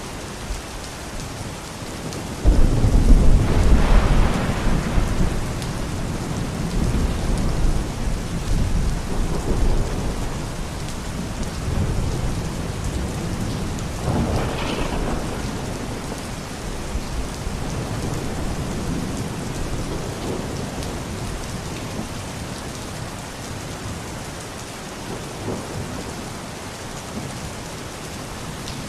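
Steady rain with thunder: a sudden loud rumble breaks about two and a half seconds in and rolls on for several seconds before fading, and a second, lighter rumble comes about halfway through.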